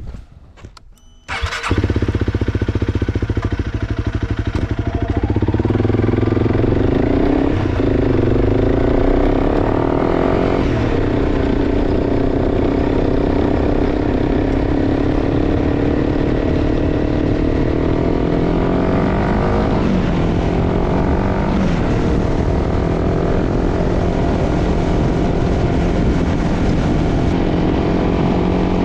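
Honda CRF300 Rally's single-cylinder engine running under way, cutting in loud and sudden a little under two seconds in, its pitch rising and falling several times with throttle and gear changes.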